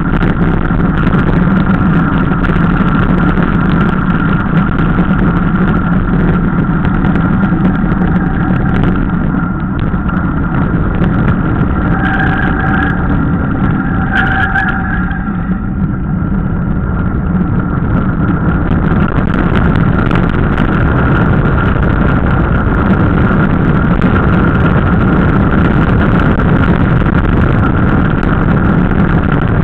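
Loud, steady rush of wind over the camera microphone mixed with the roll of knobbly mountain-bike tyres on gritty tarmac during a fast downhill run.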